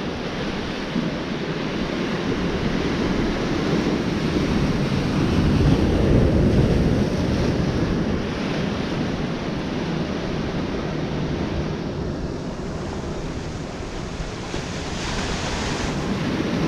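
Ocean surf washing in on the shore, swelling as waves break about five seconds in and again near the end, with wind buffeting the microphone.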